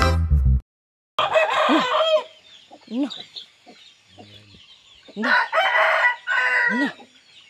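Free-range village chickens calling: a series of short clucks, with a rooster crowing loudly about five seconds in. Faint high chirps run underneath.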